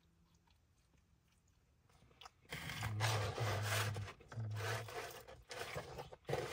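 Close-up chewing and crunching on pizza, starting about two and a half seconds in and going on in uneven spurts, with a few short low hums of 'mm' mixed in.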